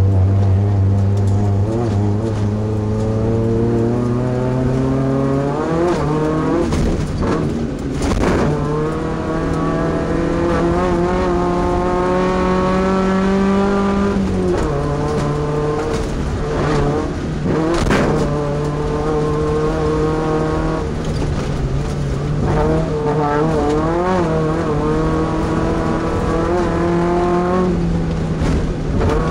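Class 2 off-road race truck's engine running hard at racing speed, its pitch climbing and then dropping sharply twice, with a few sharp knocks over rough ground.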